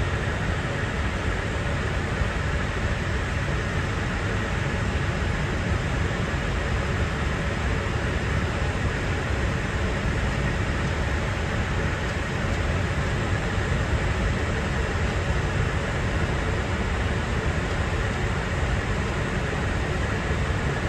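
Steady flight-deck noise of an Airbus A350 in flight: an even, unbroken rush of airflow and engine noise, heaviest in the low end.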